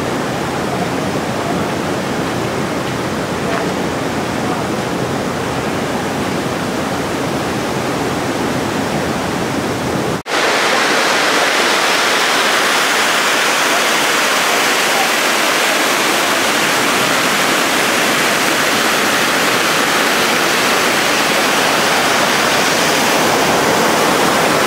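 Steady rush of water pouring through a small dam spillway. About ten seconds in it breaks off for an instant and comes back louder and hissier.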